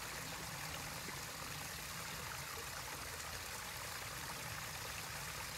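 Steady running water trickling into a garden pond, most likely the pond filter's return flow, with no distinct events.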